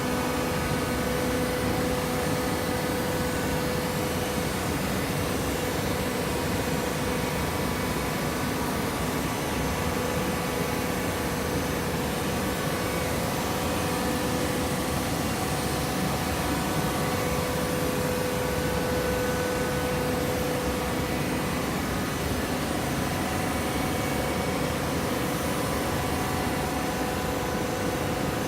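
Coconut fibre baling machine running steadily, an even mechanical drone with a constant hum.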